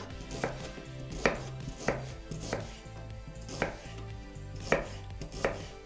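Kitchen knife slicing an onion into thin half-rings on a cutting board: the blade knocks on the board about seven times, roughly once a second.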